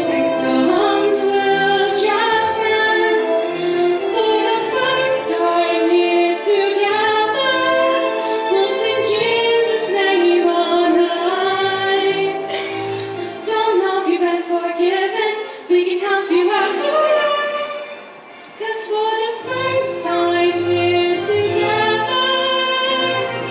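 A solo singer performing a Christmas parody song into a hand-held microphone, amplified through the PA; the singing pauses briefly about 18 seconds in.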